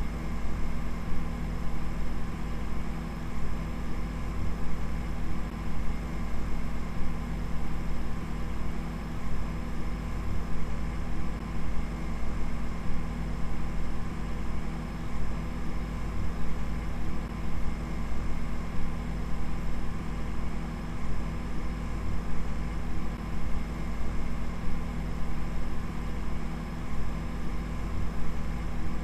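A steady low droning rumble with several constant humming tones over an even hiss, flickering rapidly in loudness but never changing in character.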